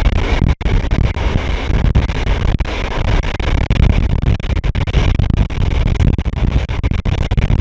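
Loud, steady running noise of a train hauled by an SU45 diesel locomotive, a heavy low rumble with rattle on top, cutting out briefly about half a second in.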